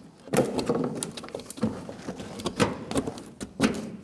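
A loose car floor pan being shifted and set into a steel chassis: a run of irregular knocks and short scrapes as the panel is handled into place.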